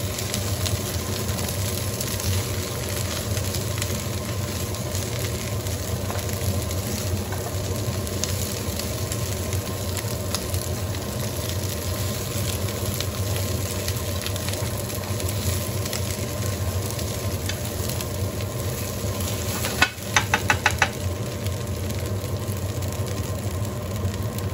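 Green and yellow wax beans frying in garlic and olive oil in a pan over high heat, a steady sizzle, stirred with a spatula at first. Near the end, a quick run of about six sharp clicks.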